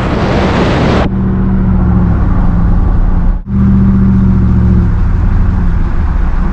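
Cab-interior sound of a Dodge Dakota R/T pickup driving slowly, its V8 running steadily. A loud hiss fills the first second and cuts off suddenly, and the sound drops out briefly about three and a half seconds in.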